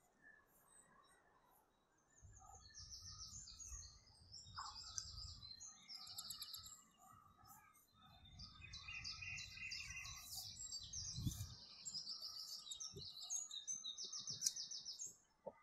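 Birds chirping and trilling, many quick high phrases one after another, over a low rumble that swells about two seconds in and again about eight seconds in.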